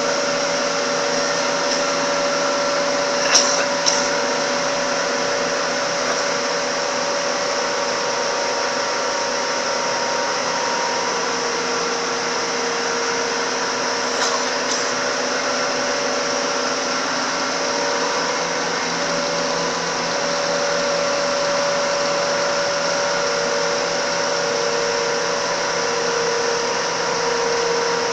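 Red chilli powder grinding machine running steadily: an even rushing noise with a steady whine over it. Brief knocks come about three and a half seconds and fourteen seconds in.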